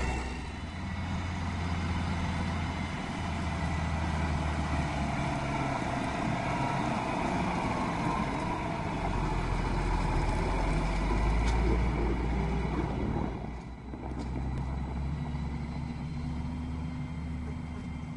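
Diesel engines of heavy harvest machinery, a forage harvester and tractors, running steadily with a deep drone, dipping briefly about three-quarters of the way through.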